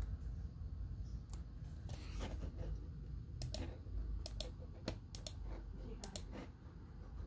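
A dozen or so sharp, irregular clicks of computer keys being pressed to enter numbers into a calculator, over a low background rumble.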